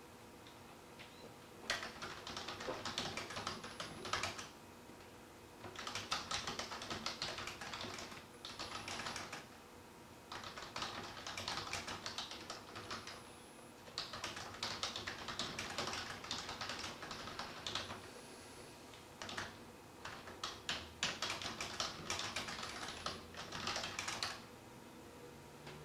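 Rapid light clicking in about five runs of two to five seconds each, with short pauses between runs, over a faint steady hum.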